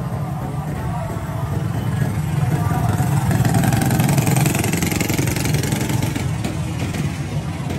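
A motor vehicle engine running close by in street traffic. It grows louder to a peak about four seconds in, as if passing, then eases.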